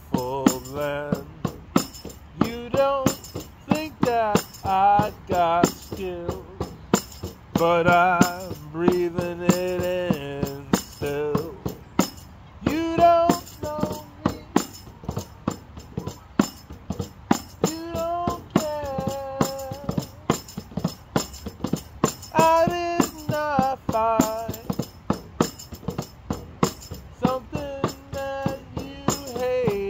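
Music: a song with a singing voice over a steady percussion beat.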